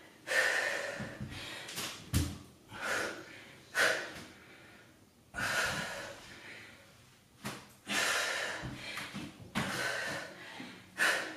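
A woman breathing hard in mid-exercise, with short forceful exhales and inhales about once every second or so. A single dull knock comes about two seconds in.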